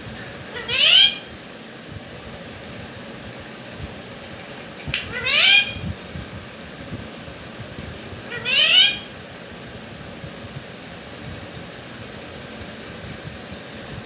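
Indian ringneck parakeet giving three loud, rising calls, about four seconds apart.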